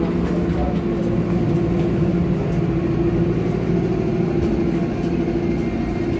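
Electric commuter train running between stations, heard from inside the passenger car: a steady rumble with a constant low hum.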